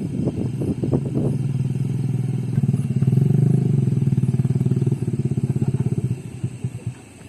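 Motorcycle engine running with a quick, even firing beat, loudest a few seconds in. Near the end its beats slow into separate pulses and it winds down to a stop.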